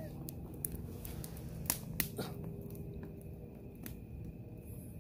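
Campfire wood crackling, with scattered sharp pops at irregular intervals over a low steady rumble.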